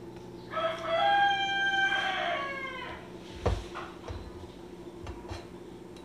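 A rooster crowing once, a single crow of about two seconds that falls off at the end, over a steady low hum. A sharp click comes about three and a half seconds in.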